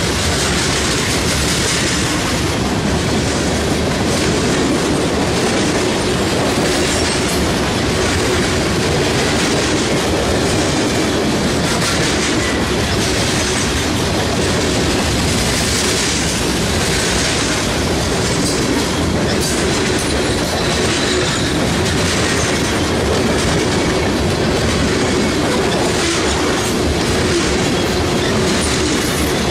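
Freight train of covered hopper cars rolling past close by: a steady, loud rush of steel wheels on rail with the clickety-clack of wheels over rail joints.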